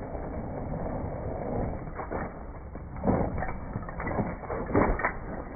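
A BMX bike sliding out and crashing onto an iced-over concrete driveway, with two rough clattering knocks, the second and louder one near the end, as the bike and rider go down. The whole sound is muffled and dull.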